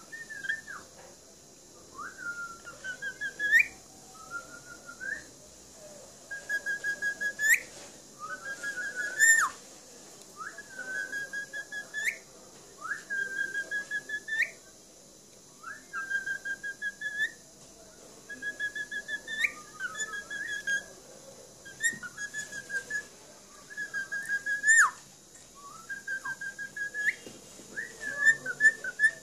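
Pet cockatiel whistling a repeated song: short phrases of quick warbled notes, each ending in a sharp upward sweep, about one every two seconds.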